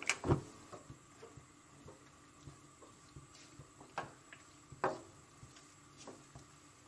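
Silicone spatula stirring chicken strips in a nonstick wok: scattered soft knocks and scrapes against the pan, a few louder ones around four and five seconds in, over a faint sizzle of chicken frying in butter.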